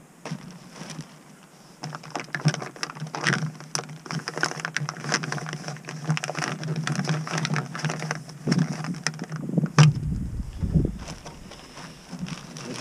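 Peak Refuel freeze-dried meal pouch crinkling and crackling as it is torn open and handled. There is a sharp click near the end of the crinkling, then a brief low rumble on the microphone.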